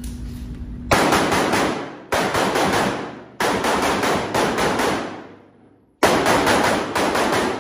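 Pistol fired in rapid strings of shots, four bursts separated by short pauses, starting about a second in, each shot sharp and echoing off the concrete walls of an indoor range.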